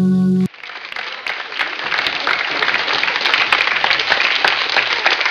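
A held guitar chord cuts off abruptly about half a second in. Crowd applause then swells up and keeps going as many quick, overlapping claps.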